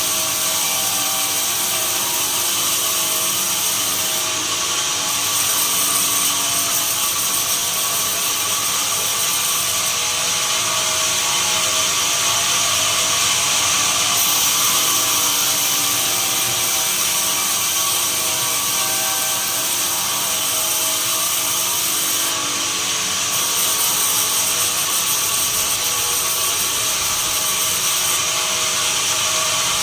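Sawmill saw running steadily and sawing pine, a loud hissing machine noise whose high edge changes several times as the cutting goes on.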